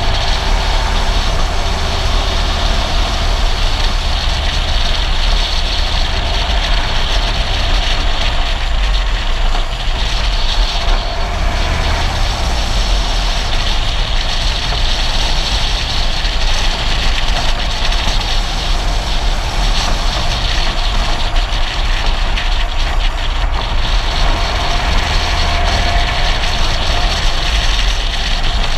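Steady rush of wind and road noise from a follow car driving downhill at speed, with wind buffeting the microphone in a low rumble.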